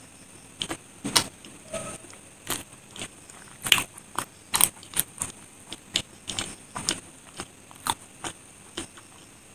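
Close-miked chewing of a soft white-bread sandwich filled with chocolate cream: a string of sharp, wet mouth clicks, irregular, about two a second.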